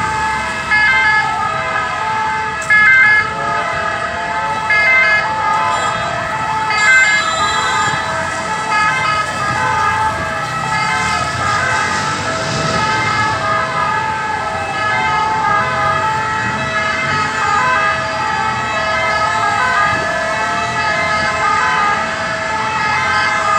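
Many ambulance sirens sounding at once and overlapping: some alternate back and forth between fixed pitches, others wail in rising and falling glides, over steady traffic noise.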